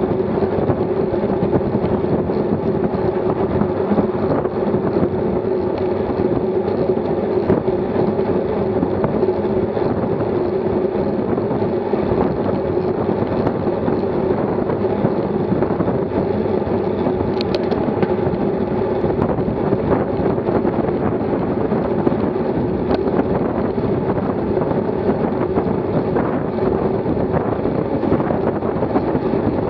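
Wind rushing over a bicycle-mounted action camera's microphone at about 30 mph, mixed with the hum of road-bike tyres on asphalt: a steady, unbroken roar.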